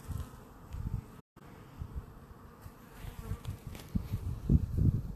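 Honeybees buzzing in flight close by. Low, irregular buffeting on the microphone grows louder near the end.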